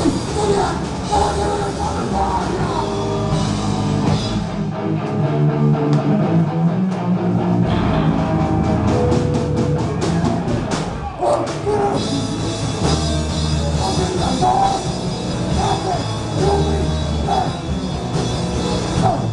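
Live rock band playing loud: drum kit, distorted electric guitar and bass. The low end drops away for a stretch from about four seconds in, and the full band comes back in around twelve seconds in. The band itself reckons the guitars were out of tune during the set.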